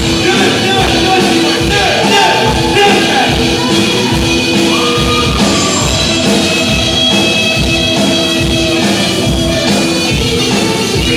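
Rock band playing live, with singing over a steady drum beat.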